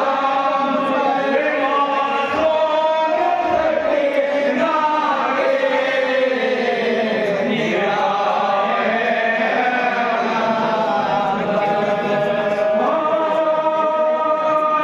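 A group of men chanting a marsiya, a Shia mourning lament, together in long held notes that slide from one pitch to the next.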